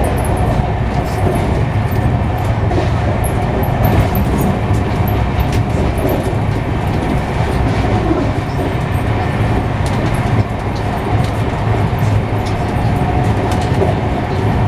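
Inside a passenger coach of the Gatimaan Express running at about 150 km/h: a steady, loud rumble and rattle of wheels on track.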